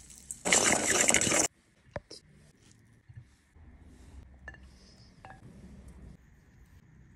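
Walnut halves rattling as they are tossed in a stainless steel mixing bowl, loud for about a second before stopping abruptly. Then a few light clicks and soft handling sounds.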